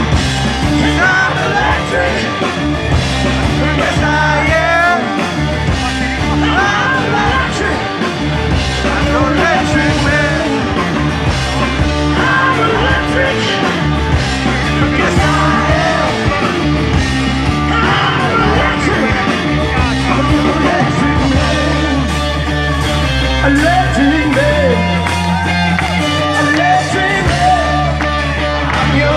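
Hard rock band playing live and loud: electric guitars, bass and drums.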